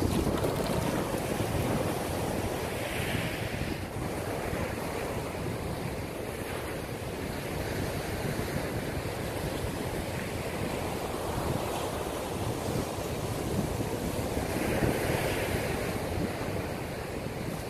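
Waves breaking and washing up a sandy beach, with steady wind buffeting the microphone. The hiss of the surf swells up about three seconds in and again near the end.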